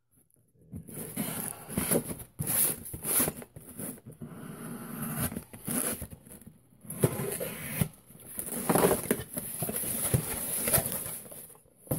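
Folding knife blade slicing through the packing tape on a cardboard mailing box, with irregular scraping, rustling and small clicks of tape and cardboard as the flaps are worked open.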